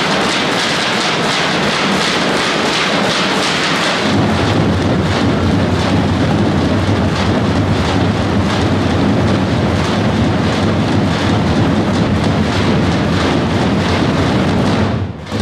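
Massed tapan drums, some twenty large double-headed Macedonian folk drums, playing together in a fast, dense, continuous roll. The roll grows fuller and heavier about four seconds in and breaks off suddenly near the end.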